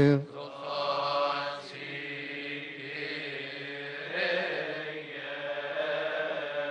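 Coptic Orthodox liturgical chant, sung without instruments. A close, loud chanted line ends right at the start, and quieter chanting voices carry on through the rest.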